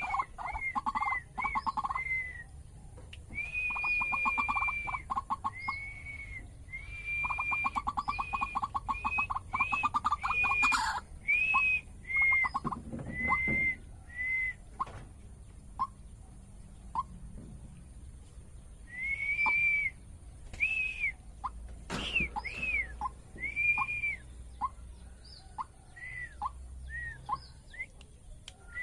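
White-breasted waterhen (ruak-ruak) calling: a long series of repeated arched notes over a fast rattling chatter, dense at first, then thinning to scattered single notes after a short pause midway.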